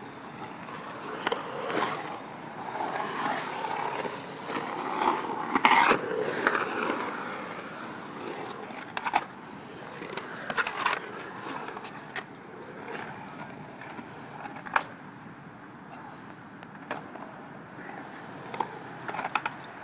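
Skateboard wheels rolling on a concrete bowl, a steady rumble that swells as the rider carves, broken by several sharp clacks of the board and trucks.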